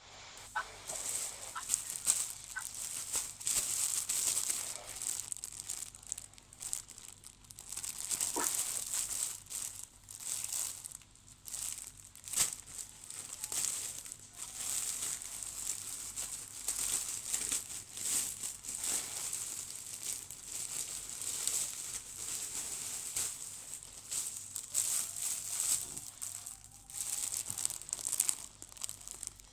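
Plastic packaging crinkling and rustling in irregular bursts, with some tearing, as a parcel of clothing is unwrapped and handled.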